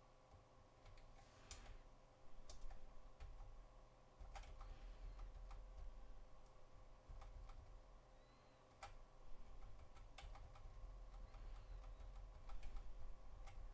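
Faint, irregular clicks from computer input, about a dozen separate clicks spread unevenly, over a steady faint electrical hum.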